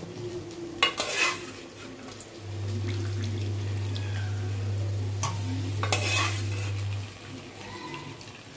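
A steel slotted spoon scrapes and clatters against steel pots as boiled potato cubes are scooped from their water and tipped into a kadai. There are sharp knocks about a second in and again around five to six seconds in. A low steady hum comes in after about two seconds and stops near seven.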